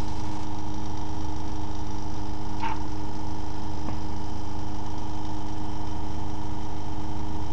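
Bedini SSG pulse motor running steadily at about 1,500 rpm, its CD rotor spinning past the drive coils: an even machine hum with several steady held tones.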